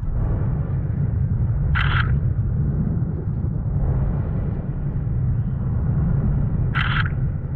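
Steady low rumble of wind buffeting the microphone of a weather balloon's onboard camera during the ascent, with two short buzzes about five seconds apart.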